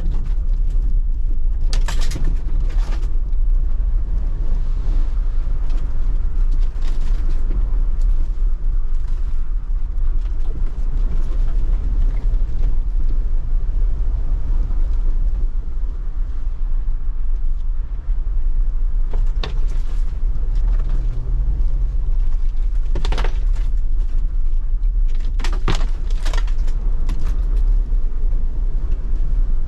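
The 2024 Jeep Wrangler Rubicon 392's 6.4-litre HEMI V8 running steadily under way, a deep constant rumble. A few sharp knocks cut through it, one about two seconds in and a cluster in the last third.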